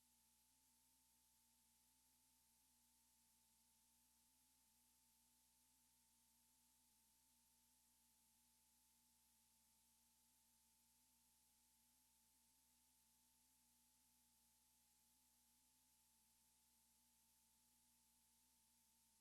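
Near silence: a faint hiss of the recording's noise floor, with a steady faint tone just under 1 kHz and a weaker, slightly wavering hum lower down.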